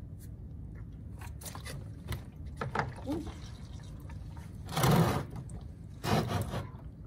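Hot engine oil gushing out of the opened drain plug hole and splashing onto a plastic drain funnel below, with two louder splashing bursts in the second half.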